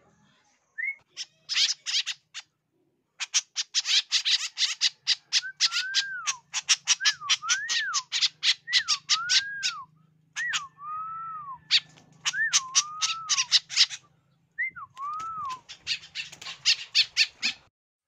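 Several caged white-breasted woodswallows calling as they are hand-fed. They give fast runs of harsh rasping chatter mixed with short whistled notes that rise and fall, in bouts with brief pauses between.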